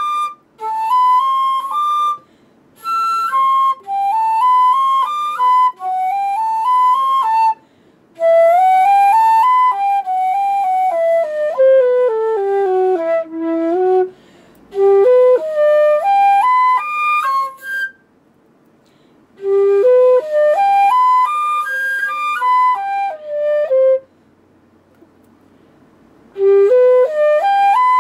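Solo Haynes Q1 flute playing melodic phrases of quick stepwise notes, broken by short rests for breath. Midway, one long phrase descends into the low register and then climbs back up.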